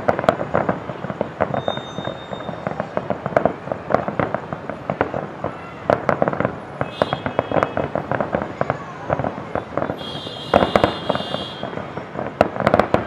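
Aerial fireworks display: a dense, continuous volley of shell bursts, several sharp bangs and crackles a second, with no let-up.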